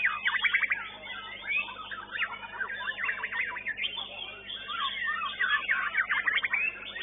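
A white-rumped shama (murai batu) singing without pause, a fast run of varied whistles and rapid trills.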